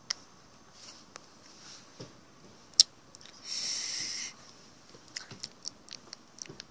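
Small toy bowls being set down and handled on a hard tabletop: light clicks and taps, one sharper click a little before the middle, and a brief hissing rustle just under a second long. A run of quick small taps follows near the end.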